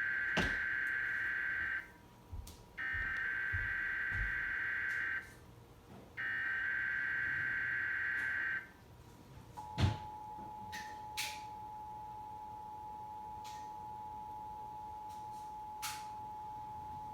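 Emergency Alert System test tones from a TV broadcast: three SAME digital header bursts encoding a Required Monthly Test, each about two and a half seconds long with a second's gap between them. Then, after a sharp click about ten seconds in, the steady two-tone EAS attention signal (853 and 960 Hz) starts and holds.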